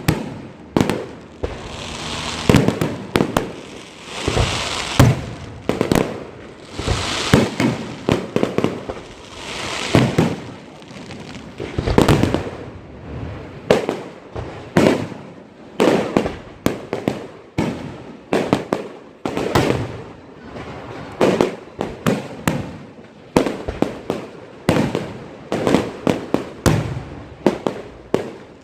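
Fireworks going off without a break: a string of sharp bangs, about one or two a second, with stretches of crackling between them.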